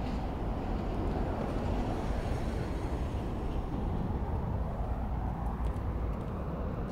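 Steady low rumbling outdoor background noise, with a few faint ticks about six seconds in.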